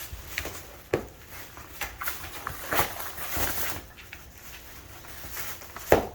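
Border collie tearing and chewing at a gift package: scattered crinkling and ripping of the wrapping, with a few sharp knocks, the loudest one near the end.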